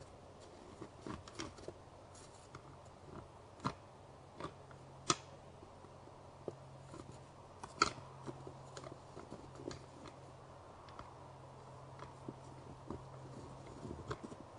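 Two white-tailed deer bucks sparring, their antlers knocking and clacking together in irregular sharp clicks, the loudest about eight seconds in.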